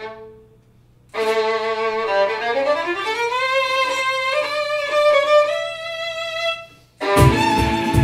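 Solo violin playing a slow melodic phrase with a long upward slide, after a short pause. About a second before the end the band comes in with guitar and cajón hits.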